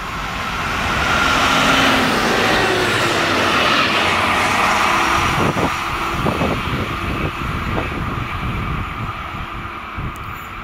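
Yellow track tamping machine passing close by on the rails. The engine and wheel noise swell to their loudest about two seconds in, then fade steadily as it runs away, with a few sharp wheel clicks in the middle.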